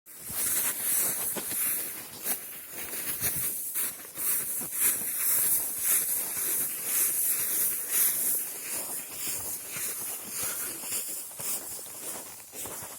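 Footsteps crunching in spring snow, a step about every second.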